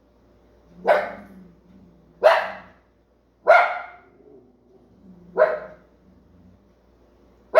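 Dog barking repeatedly, five short sharp barks spaced about one to two seconds apart.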